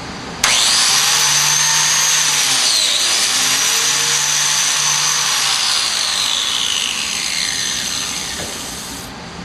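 Biscuit joiner (plate joiner) motor switched on, running with a high whine while it plunges in and cuts a biscuit slot in wood. The pitch dips briefly about three seconds in. It then winds down with falling pitch and stops near the end.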